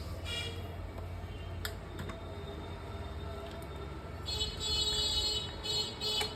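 Steady low hum from the powered-up keyboard's amplified output, with a couple of sharp clicks early on, then a bright electronic keyboard tone sounding from about four seconds in.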